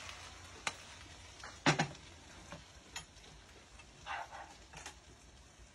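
Pork rinds and vegetables frying in a pan, the sizzle dying down as the dish is done and taken off the heat. A spatula clatters against the pan a few times, loudest about a second and a half in.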